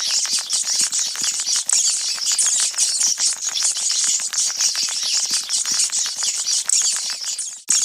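Sewer rats sound effect: a crowd of rats squeaking in a dense, high chittering over rapid clicking. It cuts out for an instant near the end.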